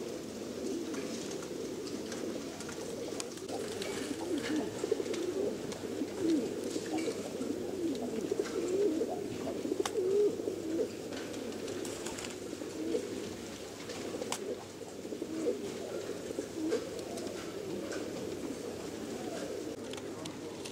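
Many domestic pigeons cooing at once, a continuous chorus of low overlapping coos that rise and fall.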